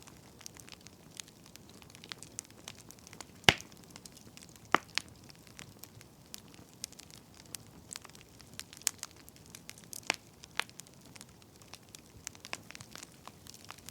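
Wood fire crackling: irregular sharp pops and snaps over a faint hiss, the loudest pop about three and a half seconds in.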